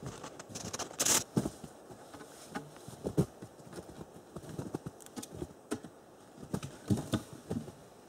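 Irregular wooden knocks, thuds and crackles of footsteps and handled wooden poles in forest litter, with a sharp crack about a second in.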